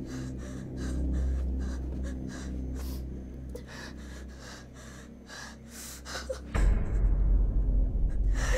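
A woman's rapid, frightened panting and gasps over a low droning horror score. About two-thirds of the way through, the score jumps suddenly into a loud deep rumble.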